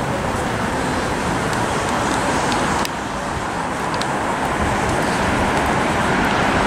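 Steady street traffic noise from passing road vehicles.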